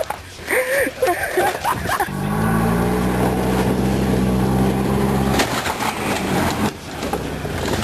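Golf cart engine running at a steady pitch for about three seconds, pulling under load as it drags a chained water heater, then dropping off about five and a half seconds in.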